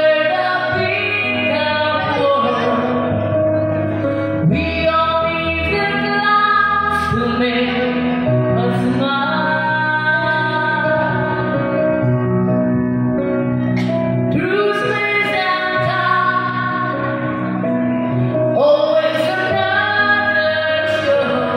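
A solo singer sings a song live into a handheld microphone over backing music, holding long notes that bend in pitch.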